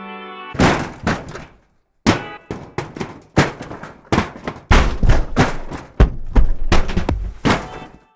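A series of about twenty heavy impacts: thunks and thuds with short ringing tails, coming every half second or so, from a library of hits on shed materials such as metal, dirt and clay. A held pitched tone ends about half a second in, before the first hit.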